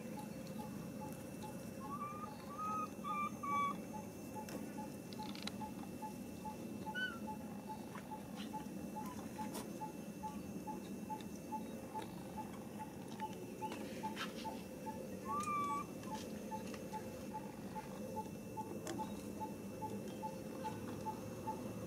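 A few short, high-pitched animal calls, a cluster about two to three seconds in and another near fifteen seconds, over steady outdoor background noise with a faint regular ticking pulse a few times a second.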